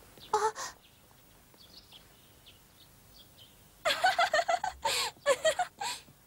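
Faint birds chirping in the background, with a brief vocal sound near the start; then, about four seconds in, a little girl's voice in a quick run of short high sounds, like giggling, for about two seconds.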